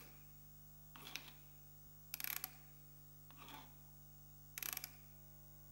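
Near silence with a faint steady hum, broken by four short crackling rustles spread about a second apart.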